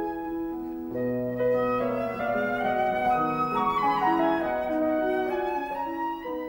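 Instrumental background music: a slow melody of long held notes, flute-like, over a piano accompaniment.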